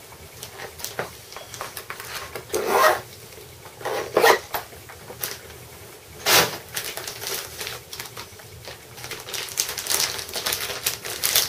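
Swim-ring packaging being handled and unwrapped: plastic and cardboard rustling and crinkling in irregular bursts, with three louder ones in the first half and a run of small rustles near the end.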